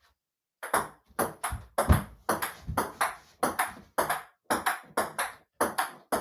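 Table tennis rally: a ping-pong ball clicking back and forth off the paddles and a small folding table, about three or four hits a second. It starts about half a second in.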